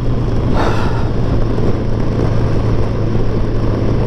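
Kawasaki GTR1000 sport-touring motorcycle's inline-four engine running steadily at cruising speed, heard with heavy wind noise, with a brief rush of noise about half a second in.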